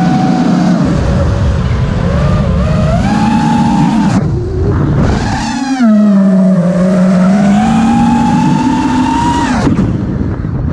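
FPV racing quadcopter's Emax RaceSpec brushless motors whining, the pitch rising and falling with throttle; about four seconds in the whine drops away and quietens, then surges back up about two seconds later, with another brief dip near the end.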